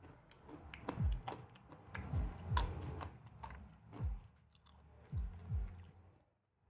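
Close-miked chewing and mouth sounds of a person eating nasi lemak with chicken rendang: wet clicks and smacks, with several soft low thumps among them.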